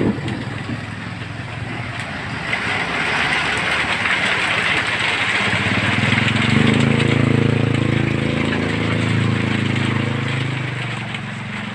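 A motor vehicle passing close on a road: a hiss of tyre and road noise swells, then a low engine hum rises to its loudest about halfway through and fades toward the end.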